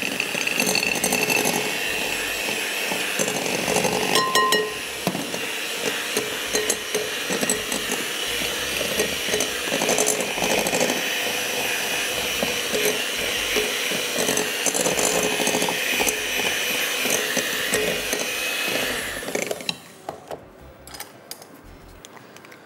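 Electric hand mixer running steadily, its beaters creaming melted butter and sugar in a glass bowl. It switches off near the end, followed by a few light clicks.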